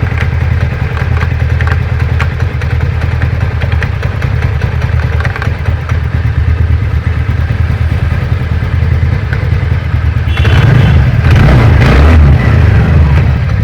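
TVS Ntorq 125 scooter's single-cylinder engine idling, then revved briefly about ten seconds in and dropping back, with a clattering knock from the CVT side. The mechanic puts the 'kit kit' knock, heard as the scooter slows, down to damaged variator rollers that run loose when the throttle is released.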